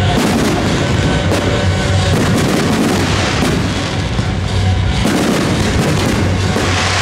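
Fireworks display: shells bursting in quick, overlapping bangs, with the show's music playing underneath.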